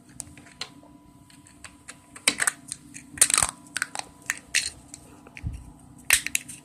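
Small 3D-printed plastic pump parts being handled and fitted together: a series of light plastic clicks and rattles, with louder clacks about two and three seconds in and again near the end.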